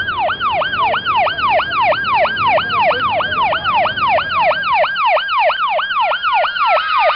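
Ambulance siren sound effect in yelp mode, sweeping rapidly up and down about four times a second. From about six seconds in, a second, slower wailing tone slides down beneath it. A low rumble under the siren fades out about five seconds in.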